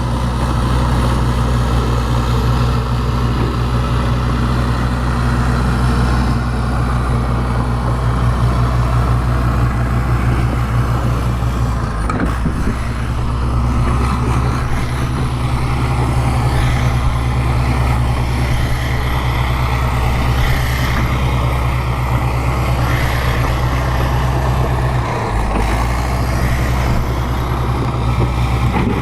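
Bulldozer's diesel engine running steadily, its low note shifting briefly about twelve seconds in and again about twenty-five seconds in.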